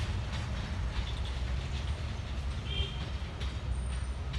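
Freight wagons rolling slowly past on the rails with a steady low rumble and a few clicks from the wheels. A short high chirp comes about three seconds in.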